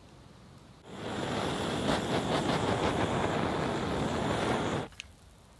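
Handheld gas blowtorch running with a steady hiss for about four seconds, melting and scorching the cheese on top of the bacon-wrapped cutlet. It starts about a second in, cuts off sharply, and a small click follows.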